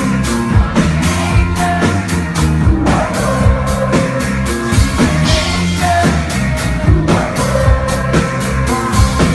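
Live rock music: a band plays with a drum kit keeping a steady beat under sustained bass notes, and a male singer sings over it.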